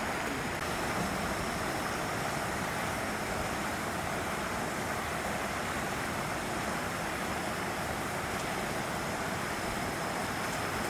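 Steady outdoor background noise: an even rushing wash with no distinct events, and a faint thin high-pitched tone held steadily on top.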